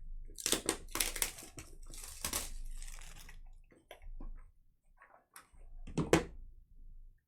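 Foil wrapper of a football trading-card pack crinkling and tearing as it is ripped open, for about three seconds. Then come light clicks and rustles of cards being handled, with a short crinkle of wrapper about six seconds in.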